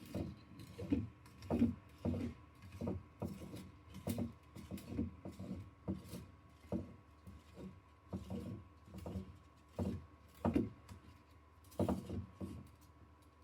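Irregular light plastic clicks and knocks, a few a second, from a 3D-printer filament spool being turned by hand to wind loose filament back on, with a couple of louder knocks near the end.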